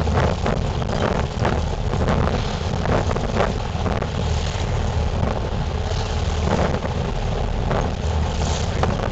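Wind buffeting a phone's microphone aboard a boat: a steady, loud rush with frequent gusty thumps over a low rumble.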